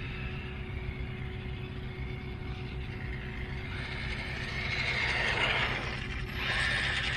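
Electric RC car's brushless motor whining as it drives on the track, swelling about four seconds in and again near the end, over a steady low wind rumble on the microphone.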